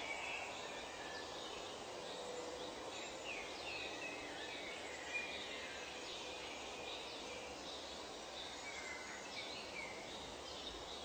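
Nature ambience: many birds chirping and calling in short, scattered phrases over a steady background hiss.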